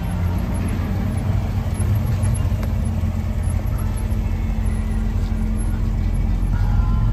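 C7 Chevrolet Corvette's V8 engine idling steadily, growing a little louder near the end.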